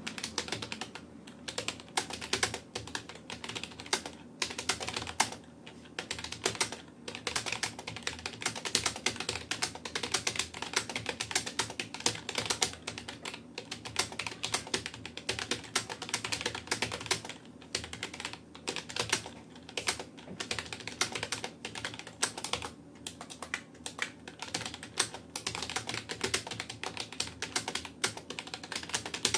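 Fast touch typing on a Rapoo computer keyboard: a dense, irregular stream of key clicks with brief pauses between bursts.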